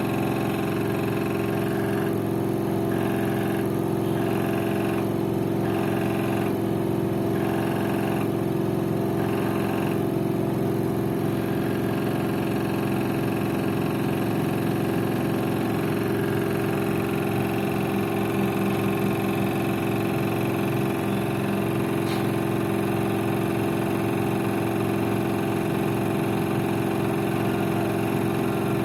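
LG FV1450S1B front-loading washing machine running its spin cycle with a steady hum. A pulsing rattle comes about every second and a half for the first ten seconds. The owner likens the odd spin noise to a bolt that is not tight enough.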